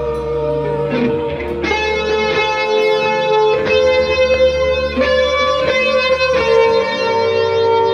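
Instrumental guitar music: notes held over a steady low drone, then a run of quickly picked notes through the middle, settling back into held notes near the end.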